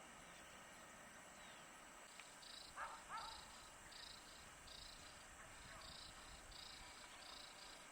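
Faint outdoor ambience with two short bird calls about three seconds in. From then on comes an even series of short, high chirps, about one and a half a second.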